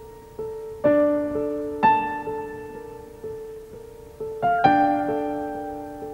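Slow, soft piano music: one note repeats about twice a second while fuller chords are struck now and then, each fading away.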